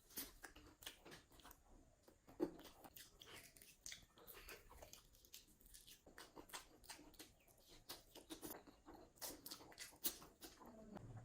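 A person chewing and biting pork with rice close to the microphone: irregular wet mouth clicks and smacks, with a sharper bite about two and a half seconds in.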